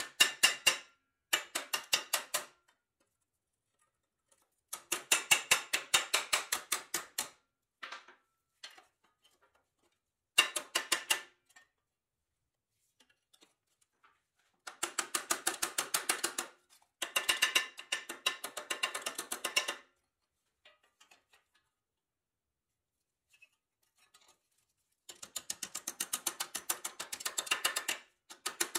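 Ball-peen hammer striking a bent pressed-steel toy truck part clamped in a bench vise, straightening the crushed metal. The strikes come fast, several a second, in bursts of one to three seconds with short pauses between.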